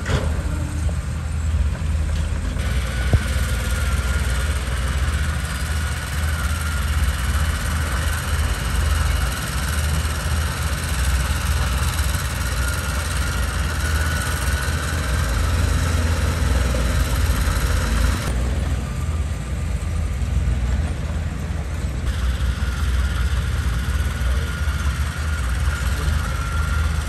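Mitsubishi BD2G bulldozer's diesel engine running steadily, with a deep steady rumble and a thin high whine that comes and goes. A single sharp click comes about three seconds in.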